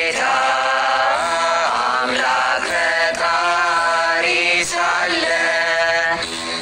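Ethiopian begena hymn (mezmur): a voice sings a chant-like melody of held, gliding notes to the begena, the large ten-string Ethiopian lyre.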